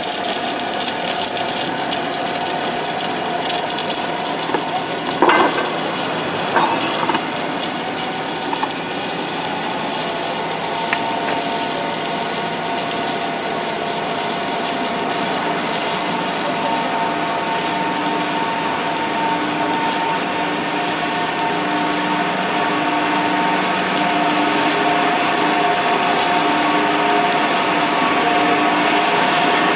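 Automatic GTAW (TIG) welding arc on a rotating carbon steel pipe during the root pass: a steady high hiss, with a few sharp clicks about five to seven seconds in. Under it are steady whining tones from the welding machine's drive, which grow stronger after about ten seconds.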